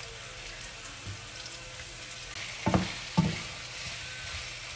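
Pieces of stockfish frying in hot olive oil with chopped onions in a non-stick pan, a steady sizzle that grows louder a little before halfway as more fish goes in and is stirred. Two dull knocks come about half a second apart just past the middle.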